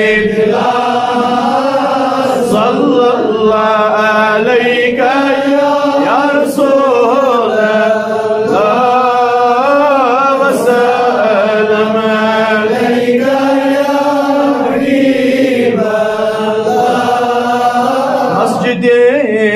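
Devotional naat singing: a voice chanting long drawn-out, wavering notes in a slow melody, with no clear words, pausing briefly between phrases.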